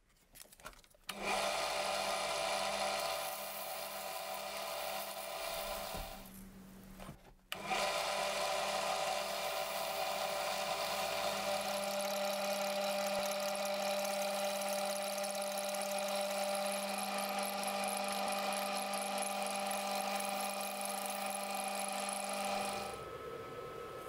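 Small lathe running with a steady motor whine while sandpaper is pressed against the spinning brass lighter part, sanding out rust pits. The sound breaks off briefly about six seconds in, then starts again, and falls quieter near the end.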